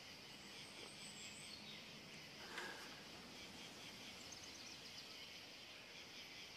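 Very faint outdoor ambience: a steady hiss with soft, repeated high chirping, and one brief soft click about two and a half seconds in.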